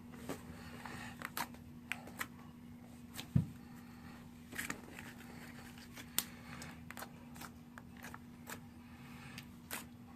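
Homemade slime being squeezed and worked by hand, giving irregular clicks and small pops; the loudest pop comes about three and a half seconds in.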